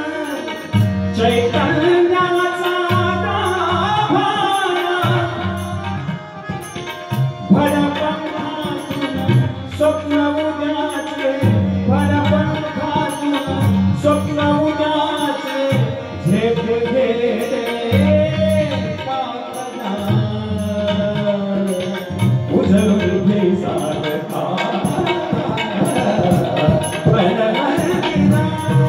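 Live Indian music: a man singing, accompanied by tabla and harmonium, with the tabla's low bass strokes running under the melody.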